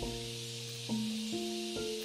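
Background music: solo piano playing a slow, gentle melody of overlapping sustained notes, over a steady high hiss.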